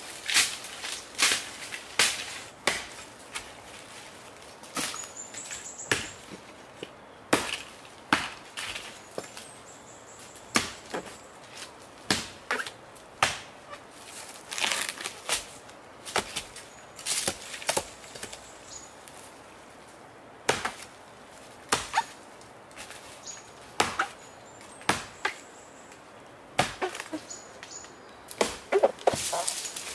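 Machete blade chopping into the fibrous base of a palm trunk: sharp, uneven strikes roughly one a second with short pauses, ending in a quick flurry of blows.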